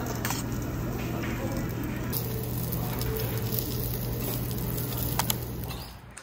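Pork sizzling on a charcoal tabletop barbecue grill, with a few sharp clicks of metal tongs turning the meat over a steady low hum. The sound cuts off about six seconds in.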